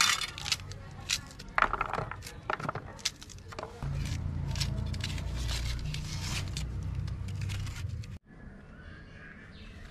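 A knife cutting through pomegranate rind and the fruit being pulled apart by hand over a plastic basin: a run of sharp clicks and crunches, with seeds and pieces tapping into the basin. A low steady rumble joins about four seconds in and stops abruptly near the end.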